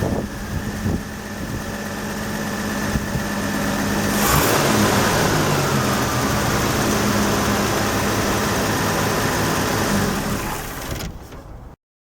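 1968 Chevy II Nova's 230 inline-six engine running, steady at first, then louder and fuller from about four seconds in; the sound cuts off abruptly near the end.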